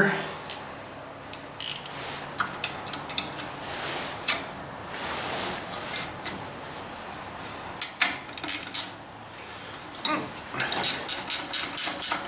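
Ratchet wrench snugging up a nut: scattered clicks, then a quick, regular string of ratchet clicks in the last couple of seconds.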